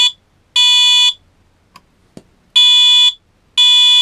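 Wheelock MT electronic fire alarm horn sounding its code 3 (temporal-3) tone, the standard evacuation signal: a loud, steady electronic tone in half-second pulses about a second apart, in groups of three. The third pulse of one group comes about half a second in, then a pause of about a second and a half, then the next group starts.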